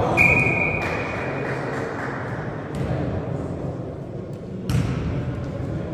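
A referee's whistle blown once at the start, a short steady high note, then a few sharp thuds of the volleyball being struck, the loudest near the end, ringing in a gymnasium over a low murmur of voices.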